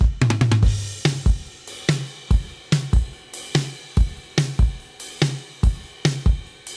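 Toontrack Stockholm SDX sampled acoustic drum kit in Superior Drummer 3, 'Crushed Pop' preset, playing a pop groove at 144 BPM. Kick, snare, hi-hat and cymbals keep a steady beat, with toms ringing out at the start.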